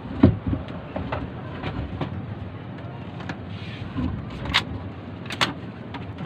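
Small air-cooled Robin single-cylinder petrol engine running steadily, pushing a wooden fishing boat under way. Several sharp knocks sound over it, two of the sharpest near the end.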